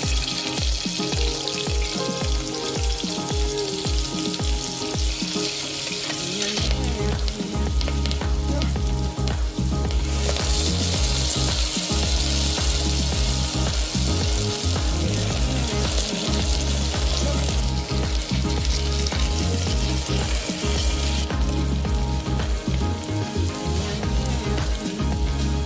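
Onion, potato and mixed vegetables frying in hot oil in an aluminium pressure cooker, a steady sizzle that steps louder and fainter a few times.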